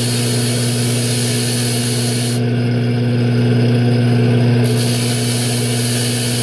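Electric motor-driven brush wheel running with a steady hum and a hiss as the brush works the lock cylinder, taking the burr off its face.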